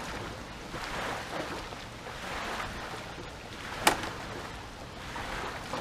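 Wind and lake water around an open aluminum jon boat, a steady rush that swells and eases about once a second, with one sharp knock about four seconds in.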